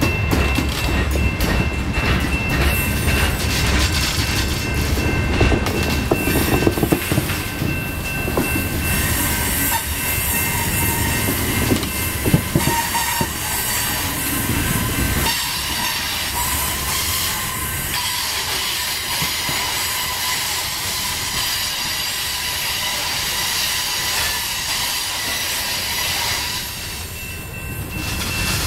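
Covered hopper cars of a long grain train rolling past at close range: steady rumble of steel wheels on rail with clatter over the rail joints, and a thin, steady high-pitched wheel squeal. The low rumble eases about halfway through.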